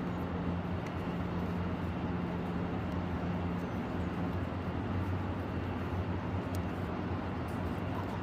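Steady outdoor street noise with a low, engine-like hum; a slightly higher hum in it fades out about halfway through.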